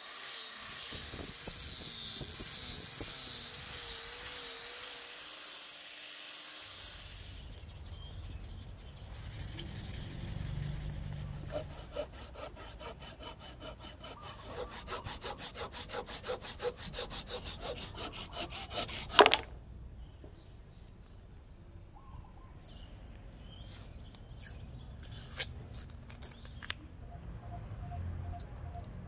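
A rotary polisher with a foam pad runs as a steady hiss against a rosewood hatchet handle for several seconds. Then a blade saws back and forth through the wooden wedge in the axe eye, about two strokes a second, ending in a single sharp crack. Quieter clicks of handling follow.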